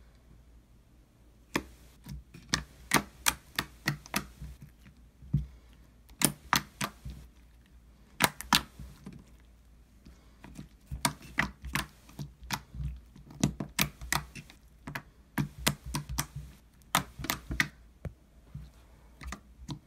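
Fingers poking and squeezing a lump of slime, making quick sticky clicks and pops in irregular runs of several a second. The clicks start about a second and a half in.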